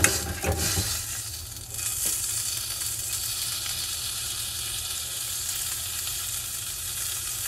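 Stuffed pork chop sizzling steadily in hot oil in a small frying pan, with a few sharp clinks of fork and knife against the pan in the first two seconds as the chop is turned.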